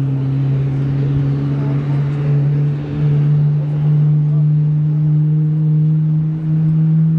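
Low, steady engine drone that rises slowly in pitch, from an Air China Cargo Boeing 777F being moved by its tow tug.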